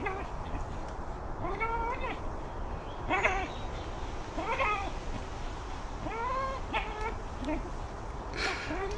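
Dog giving short, high whining cries, about six of them, each rising then falling in pitch, while it leaps at and hangs from a branch.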